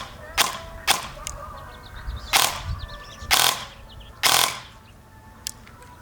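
Airsoft rifle fired six times through a Noveske-style amplifier muzzle device, each shot a sharp, slightly hollow pop. Three shots come in quick succession, then three more about a second apart.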